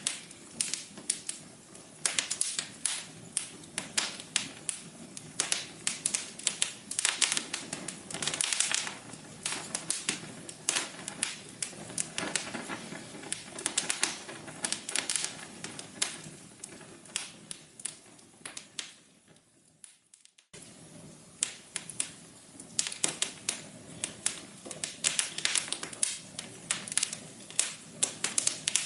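Wood fire in a fireplace crackling, with dense irregular pops and snaps over a soft hiss. About two-thirds of the way through, the crackling fades away to near silence for a moment, then starts again abruptly.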